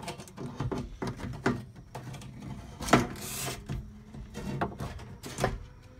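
Scattered clicks, knocks and rubbing as a fuel pump assembly's metal flange plate is handled and worked into the fuel tank opening, with a sharper knock about three seconds in followed by a brief scrape.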